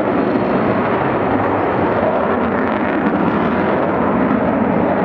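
Avro Vulcan XH558 delta-wing jet bomber flying past overhead, the loud, steady noise of its four Rolls-Royce Olympus turbojets.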